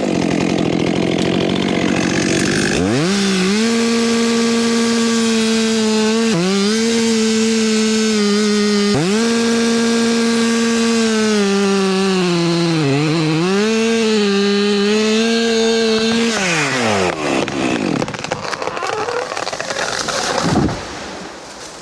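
Two-stroke chainsaw revving to full throttle and cutting through a large tree trunk, its pitch sagging briefly a few times as the chain bites, then dropping back to idle. Near the end the felled tree comes down with a short heavy crash.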